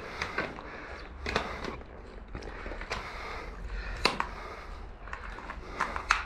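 Scattered sharp clicks and knocks at irregular times, about ten in all, the loudest about four seconds in and again just before the end, over a steady low rumble.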